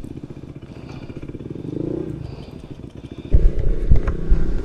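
Honda ADV 160 scooter's single-cylinder engine running at idle, then getting louder and rougher as the scooter pulls away about three seconds in.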